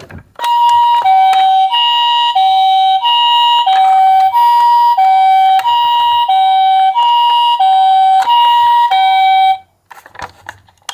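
Japanese ambulance-style two-tone siren alternating steadily between a higher and a lower note, about one high-low cycle a second. It cuts off abruptly near the end, and a few faint clicks follow.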